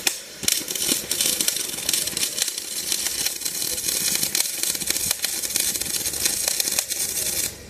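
Electric arc welding: the arc crackles steadily and densely, starting just after the beginning and cutting off suddenly near the end.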